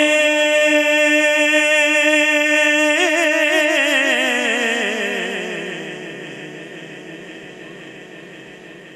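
A male naat reciter holding one long sung note for about three seconds, then drawing it down in a wavering, descending run that fades away in heavy reverb.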